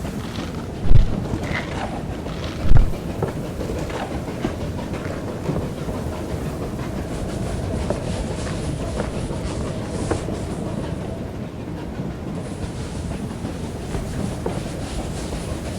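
Hand-made foley of a steam train running on the rails: a steady rattling clatter, with two loud thumps about one second and about three seconds in.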